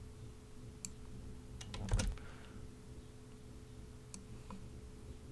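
A few sharp clicks of a computer keyboard and mouse, bunched together about two seconds in, as shortcut keys are pressed and objects clicked and dragged, over a faint steady hum.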